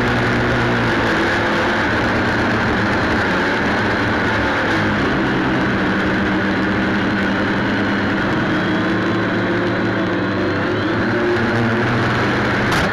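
Quadcopter drone's motors and propellers buzzing steadily, picked up close by its onboard camera, the pitch of the hum shifting slightly now and then as it descends.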